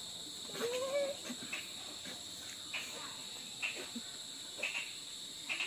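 Steady high chirring of night insects, with a few scattered short chirps and a brief wavering cry about a second in. Near the end a fast run of chirps begins.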